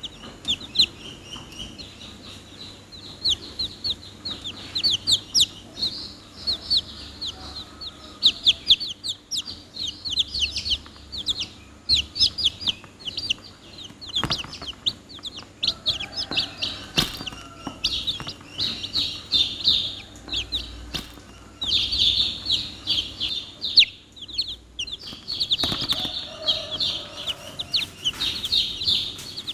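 Domestic chicks peeping continuously, many high-pitched downward-sweeping cheeps overlapping, with a few low clucks from a hen among them.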